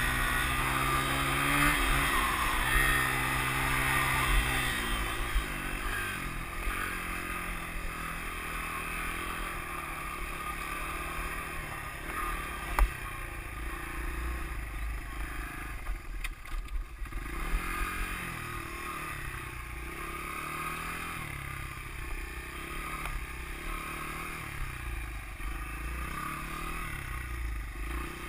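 Dirt bike engine running as it rides over grass, holding steady at first and then revving up and down repeatedly with the throttle, over a low rumble of wind on the microphone. One sharp click about 13 seconds in.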